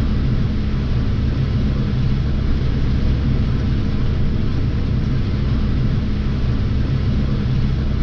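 John Deere 8RX tractor running steadily under load, heard from inside its cab as a constant low drone while it pulls the grain cart beside the working combine.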